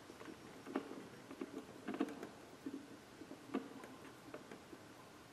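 Faint, irregular small clicks and taps of an Allen wrench working the set screws of a shifter pistol grip, run in only until they just touch the shaft.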